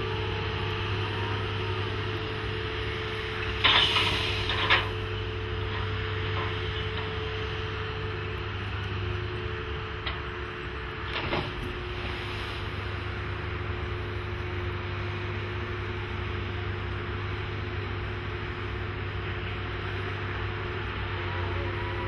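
Sennebogen 650 HD crawler crane running steadily as it swings its drag bucket, with a short loud noisy burst about four seconds in. About eleven seconds in, the bucket hits the water with a splash.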